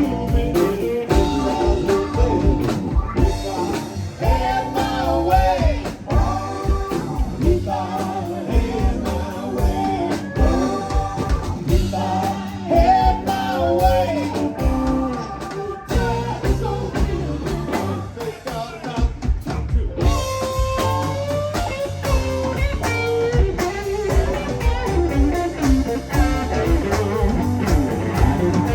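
Live rock band playing: drums, bass, electric guitars and keyboards, with melodic lead lines over a steady beat.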